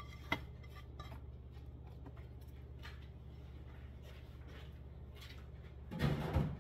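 Quiet clinks and scrapes of a ceramic bowl and utensil as chopped tomatoes are tipped back into a plastic food processor bowl, with a sharper click just after the start. A brief louder burst of handling noise comes near the end, over a steady low kitchen hum.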